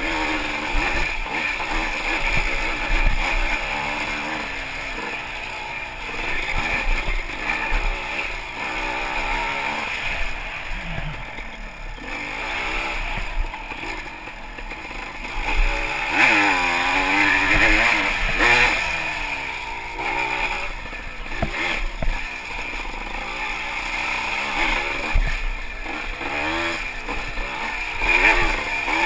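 Yamaha IT200 two-stroke single-cylinder enduro bike being ridden on a trail, its engine pitch rising and falling again and again as the throttle opens and closes.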